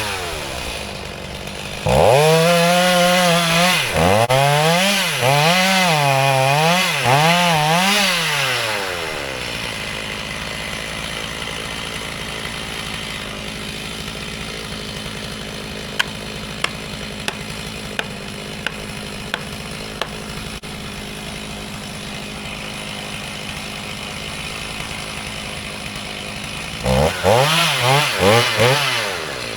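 Gas chainsaw revving hard in repeated surges, its pitch dipping and rising as it works through wood. It then drops to a quieter steady running for a long stretch, with a run of about six sharp clicks in the middle. Near the end it revs up in a few quick surges again.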